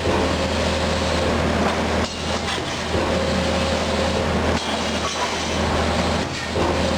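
1989 Finn-Power TP 3015 CNC turret punch and its AS 600 automatic loader running, with finished sheet material being moved off the end of the table: a steady machine hum and rumble. A thin whine comes and goes about three times.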